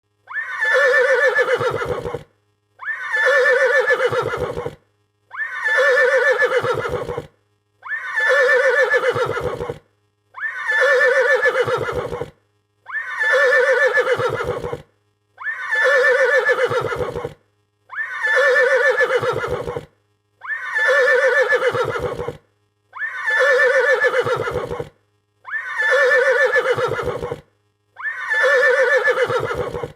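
A frightened horse neighing: one shrill, quavering whinny about two seconds long, repeated the same way every two and a half seconds or so.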